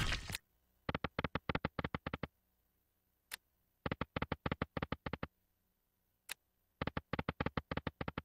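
Video slot machine game sounds: three bursts of rapid clicking ticks, each about a second and a half long, as the reels spin and stop on three spins in a row. A single click comes shortly before the second and third bursts, with silence between.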